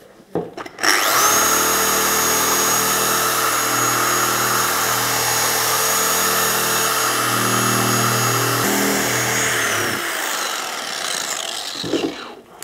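Dual-action car polisher with a foam pad running steadily with a high whine as it polishes swirl marks out of a gloss black wing mirror cap. It starts about a second in and winds down to a stop near the end.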